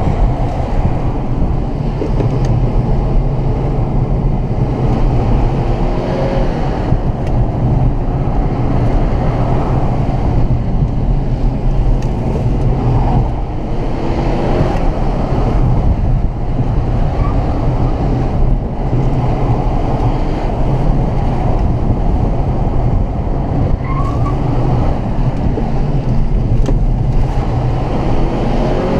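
Mercedes-Benz CLA250 heard from inside the cabin while driving: its turbocharged four-cylinder engine running with a steady low drone under constant tyre and road noise.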